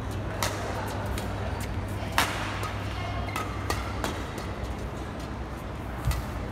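Badminton rally: about five sharp racket strikes on the shuttlecock, the loudest about two seconds in, with short squeaks of court shoes on the mat. A steady low hum from the hall runs underneath.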